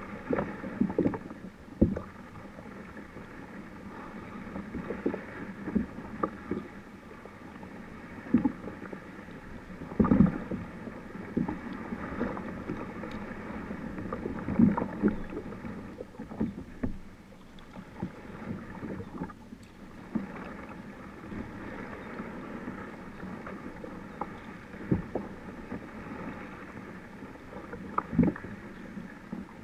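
Kayak being paddled: irregular paddle strokes and water splashes with occasional sharp knocks, picked up by a camera mounted on the bow.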